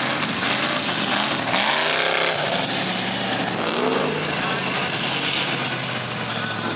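Pickup truck engines revving as the trucks drive through a mud pit, rising and falling in pitch, with a clear rev about two seconds in and another near four seconds.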